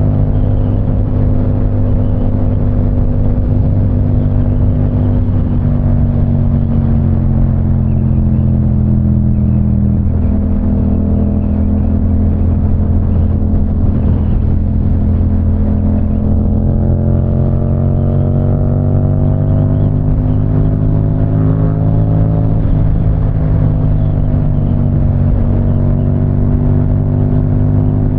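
Yamaha R7's 689 cc parallel-twin engine running at speed while riding on the freeway, its pitch drifting gently up and down as the throttle changes.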